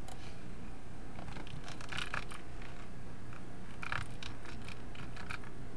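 Computer keyboard keys clicking in small scattered clusters as a search is typed, over a low steady hum.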